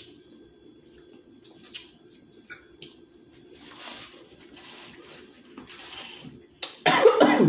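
Wet chewing and mouth sounds of a person eating seafood boil, with small clicks and soft breaths. Near the end comes a sudden loud cough, brought on by the hot, spicy seasoning.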